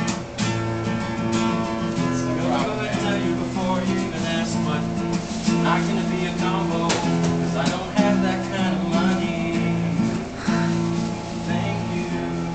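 Acoustic guitar strumming chords that change every second or two.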